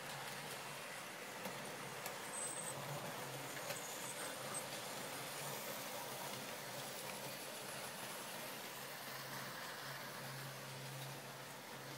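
OO gauge model train running along the track: a steady whirr from the locomotive's small electric motor and its wheels on the rails, with a low hum that grows a little stronger near the end.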